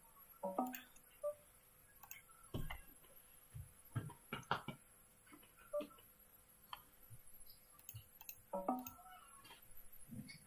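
Scattered short clicks and taps with two matching brief pitched blips, about a second in and near the end, typical of an online poker client's sound effects and mouse clicks.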